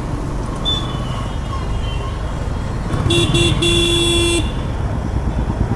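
A vehicle horn honking three times about three seconds in, two short toots and then a longer one, over the low, steady rumble of engines and traffic.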